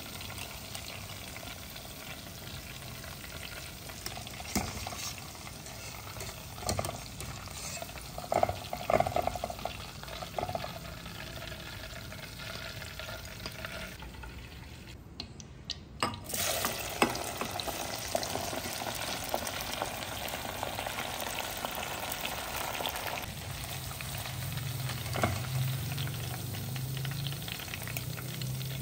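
Hot oil sizzling steadily as battered pork pieces deep-fry, with scattered sharp clinks of a wire spider strainer against the metal pot. The sizzle drops away briefly about halfway through, then comes back louder.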